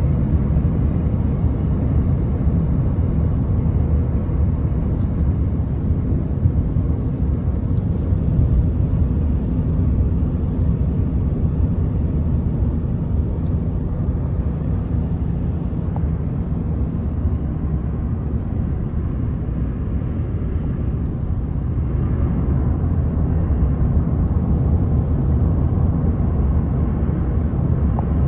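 Steady road noise inside a moving car: a low rumble of tyres and engine at highway speed.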